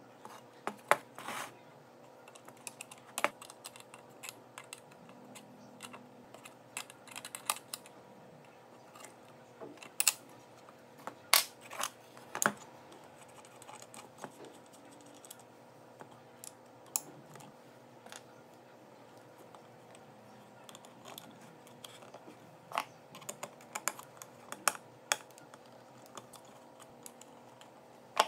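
Irregular light clicks and taps of crimped wire terminals and insulated leads being handled and set down against a wooden bench and the inverter board, over a faint steady hum.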